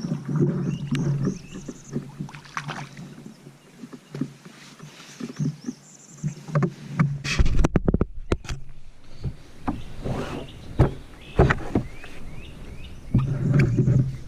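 Knocks, clunks and rattles of gear being handled in a kayak, with a run of sharp thumps in the middle.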